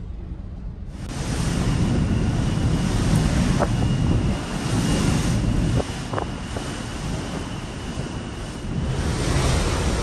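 Rush of wind and sea on a ferry's open deck, with wind buffeting the microphone, over the ship's low engine rumble. The noise swells sharply about a second in.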